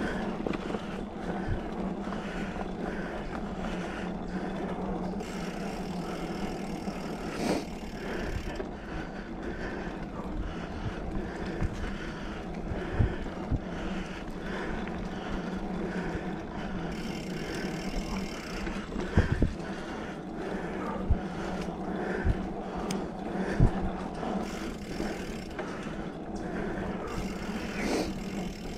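2020 Specialized Fuse 27.5+ mountain bike riding a dirt trail: continuous rolling and rushing noise with a steady low hum, broken by many sharp knocks and rattles as the bike hits bumps, the loudest about halfway through and near two-thirds of the way.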